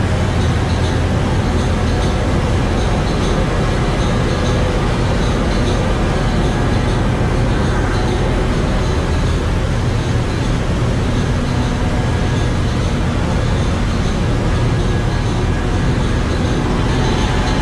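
Steady loud din of a container ship's engine room: the 62,000-horsepower main diesel engine and auxiliary machinery running, heaviest in the low rumble and unchanging throughout.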